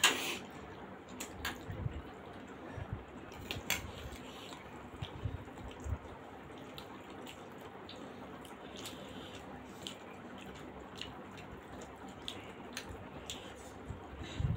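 Close-up eating sounds: wet chewing, squishing and lip-smacking as steamed momos are eaten by hand, with scattered small mouth clicks. A sharp clink at the very start, where a spoon sits in a steel sauce bowl.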